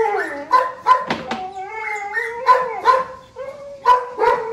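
Dogo Argentino dogs whining in long, wavering high whines, broken by several short sharp yelps.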